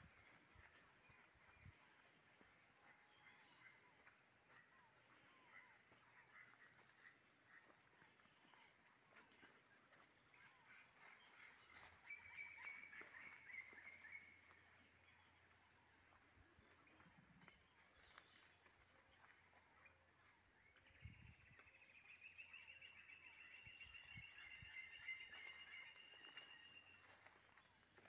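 Faint insect drone, steady and high, with wild bird calls over it: a short burst of chattering calls about twelve seconds in and a longer trilled call over the last several seconds.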